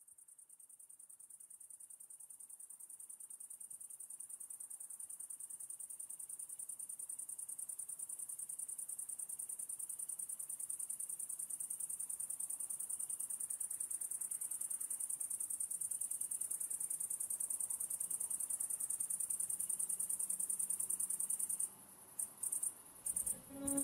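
Insect stridulation: one continuous high-pitched, rapidly pulsing trill, like a cricket's, that fades in and slowly grows louder. It breaks off into a few short stuttering bursts near the end, just as soft music begins.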